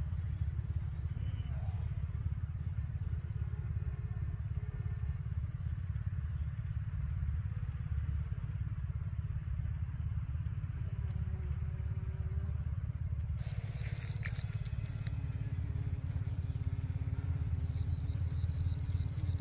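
Honeybees buzzing faintly over a steady low rumble. In the last third a rapid, high repeated chirping comes in twice.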